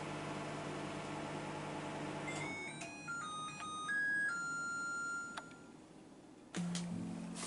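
LG microwave oven running with a steady hum, which stops about two and a half seconds in as its timer runs out. It then plays its end-of-cooking signal: a short melody of electronic beeps at stepping pitches, finishing on a longer held note. Music starts near the end.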